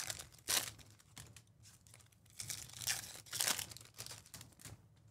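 A foil-wrapped Topps Chrome trading-card pack torn open by hand: a run of short rips and crinkles of the wrapper, the loudest about half a second in and again around three seconds in.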